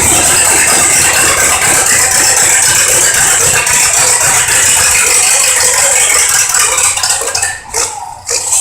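Farm tractor engine running hard under load with a dense, fast rattle, pulling the weight sled at a tractor pull. The sound falls away about three-quarters of the way through, then comes back briefly.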